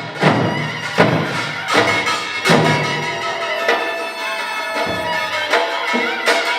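Korean pungmul band playing: drums and gongs striking roughly once a second under a held, high melody line from a wind instrument.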